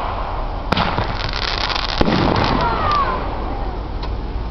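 Aerial fireworks bursting: a sharp bang under a second in, a dense crackle of sparks, and a second bang about two seconds in.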